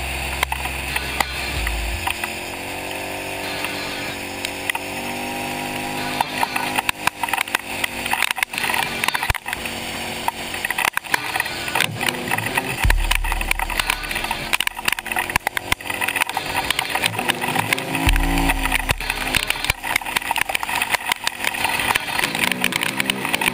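Kawasaki KFX700 ATV's V-twin engine running at speed, its pitch rising and falling as the throttle opens and closes. Frequent short knocks and rattles come from the rough trail.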